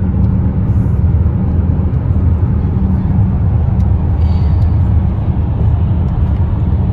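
Car cabin noise while driving: a steady low rumble of road and engine noise.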